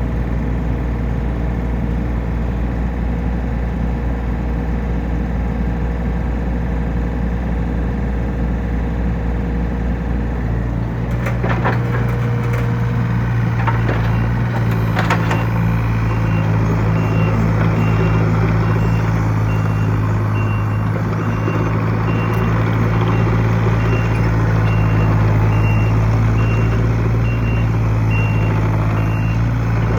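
John Deere 35D mini excavator's diesel engine running steadily, then throttling up about ten seconds in, with a few clanks. From about fifteen seconds a rapid, high-pitched travel alarm beeps steadily over the engine.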